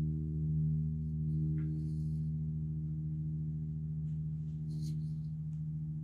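Stratocaster electric guitar's open low E string ringing on through a clean amp with the tone knob rolled off, a single sustained note slowly fading away.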